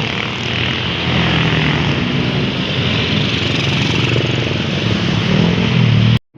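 Vehicle engine running loudly close by with heavy road noise, steady throughout, cutting off suddenly near the end.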